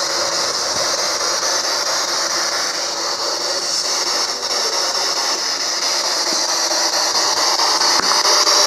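Spirit box, a radio that sweeps through the stations, hissing a steady loud static with a fast, fine chopping as it scans.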